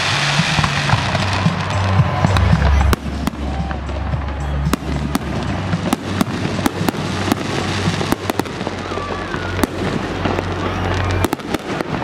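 Fireworks display: a rapid, irregular string of sharp bangs and crackles over loud music with a deep bass line.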